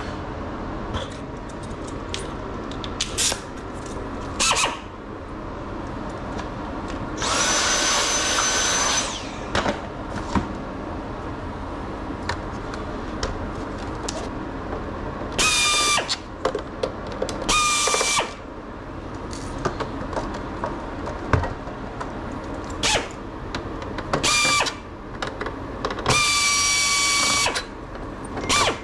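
A small handheld power tool whirring in short bursts of a second or two, about five times, the longest near the end, with small clicks and knocks of handling between them.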